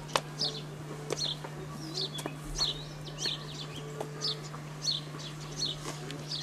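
A bird chirping over and over: short, high, falling notes about once or twice a second. Sharp clicks come at irregular intervals over a steady low hum.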